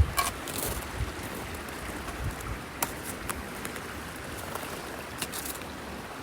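Steady rushing hiss of a running brook, with a few faint ticks scattered through it.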